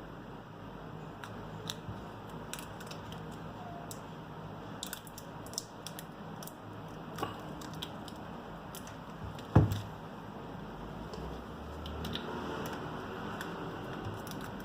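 Small scattered clicks and taps of hand tools and smartphone parts being handled during a phone teardown, with one louder knock about two-thirds of the way through, over a steady low hum.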